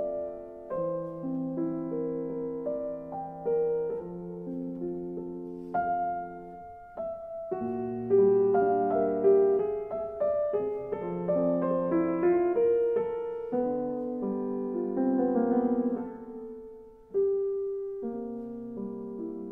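Background piano music: a gentle, slow piece of held chords and melody notes.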